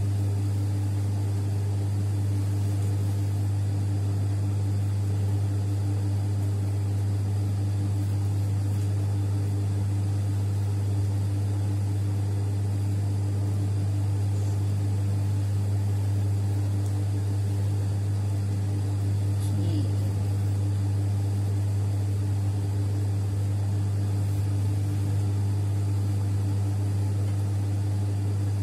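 Steady electric motor hum, a low even drone with no changes, from the motor of a Singer industrial sewing machine running.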